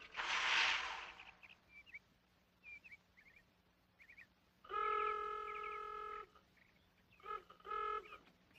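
A vehicle horn honks: one long blast of about a second and a half, then two short toots. Before it, a burst of hiss in the first second, and small birds chirp faintly.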